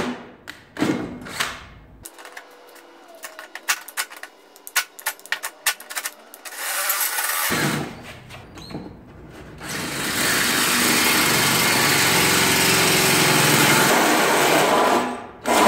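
Cordless drill driving a hole saw through an SUV's front fender: scattered clicks and taps, a short burst of cutting, then about five seconds of steady, loud cutting near the end.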